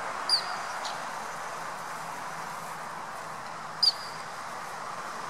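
Two short, shrill blasts on a dog-training whistle, about three and a half seconds apart, signalling a spaniel to turn during quartering search. Steady outdoor background noise runs underneath.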